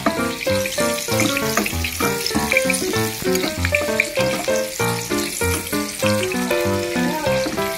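Onion and garlic sizzling in hot oil in a frying pan as they are stirred, with a steady hiss. Background music made of quick, short notes plays over it.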